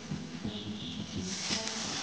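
Sliced onions frying in oil in a steel karahi, stirred with a metal spatula. About a second and a half in, water poured into the hot pan sets off a louder, steady sizzling hiss.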